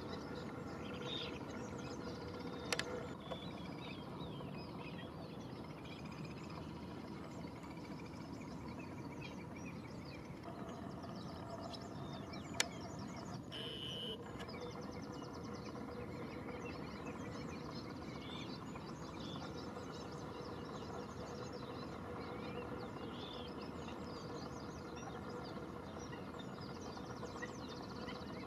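Many short, distant bird chirps and calls scattered over a steady outdoor background noise with a faint hum, broken by two sharp clicks, about 3 seconds in and near the middle.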